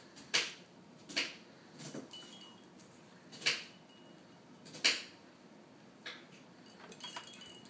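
Light, irregular clinks, about seven of them, a couple leaving a faint, brief ringing.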